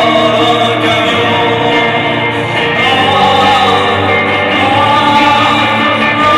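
Live music: a solo electric guitar with sustained, layered tones, and a male voice holding long, slowly bending notes over it.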